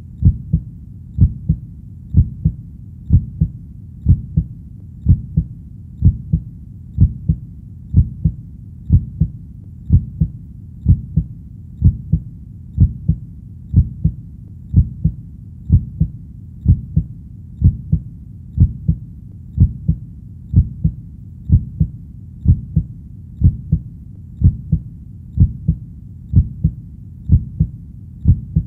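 Human heartbeat sound: a steady, low double thump (lub-dub) repeating evenly at about one beat a second.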